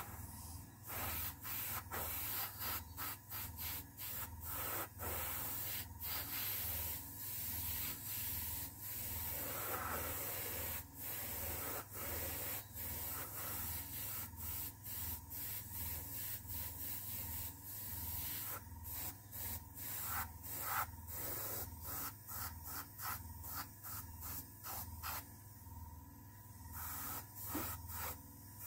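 An airbrush spraying black paint with a hiss of air that comes in many short bursts as the trigger is worked on and off, over a low, rhythmically pulsing hum.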